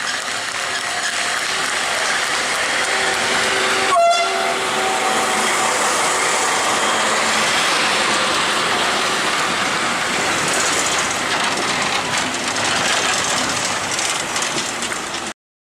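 Historic train running through the station on the rails, with a short horn blast about four seconds in. The sound stops abruptly near the end.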